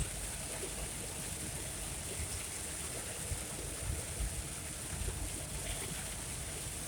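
Heavy rain pelting a moving truck, heard from inside the cab: a steady hiss of rain and road spray over the low rumble of the truck driving, with small irregular thumps.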